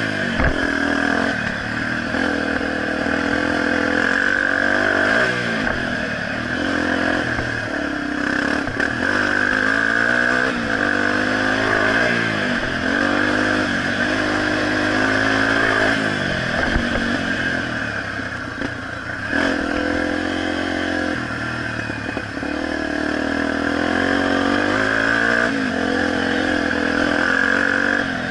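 Honda XR250 Tornado's single-cylinder four-stroke engine, ridden hard on a dirt motocross track and heard from a camera mounted on the bike: it revs up and backs off again and again, every few seconds, through gear changes and corners.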